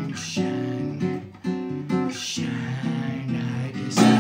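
Taylor cutaway acoustic guitar strummed in an instrumental break between sung lines, the chords changing every second or so, with one hard strum near the end that is the loudest moment.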